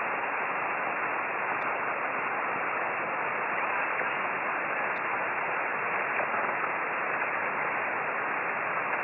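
Steady hiss of 10-metre band noise from a FlexRadio SDR receiver in upper sideband, cut off above about 3 kHz by its 2.7 kHz receive filter, with no station readable on the frequency.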